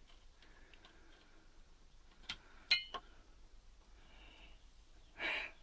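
Low room noise with a couple of small clicks and a light metallic tick from handling the opened power supply, about two and a half seconds in, then a short breath near the end.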